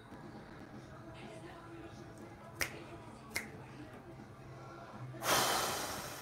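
Two sharp clicks about a second apart, then a louder burst of rushing noise that fades away over about a second.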